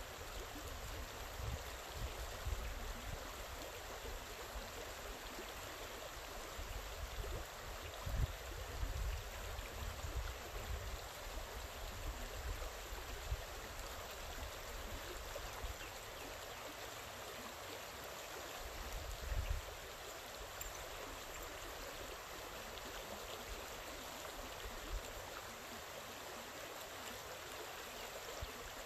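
Creek water flowing steadily over a shallow bed, an even rushing hiss. A few low thumps, the loudest about eight and nineteen seconds in.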